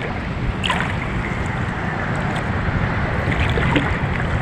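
Sea water sloshing and lapping close to the microphone as someone wades through it, with wind rumbling on the microphone. A short splash comes about two-thirds of a second in.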